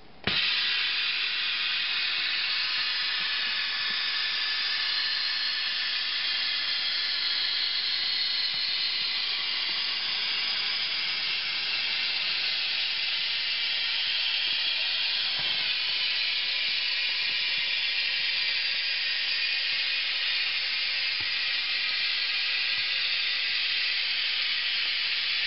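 Compressed air hissing from an air assist unit through a hose into a container's plastic liner bag. The hiss is steady and high, and it starts suddenly. The air is inflating the liner to push the product forward towards the outlet.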